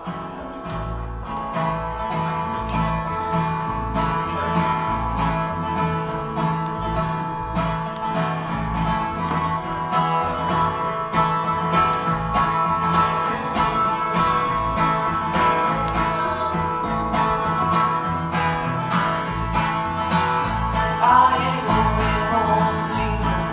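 Instrumental introduction to a bluegrass-style gospel song, played live on plucked acoustic string instruments over a steady bass beat.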